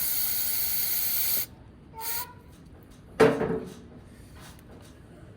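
Aerosol carb cleaner sprayed in a steady hiss for about a second and a half, then a shorter second spray, followed about three seconds in by a single loud clunk.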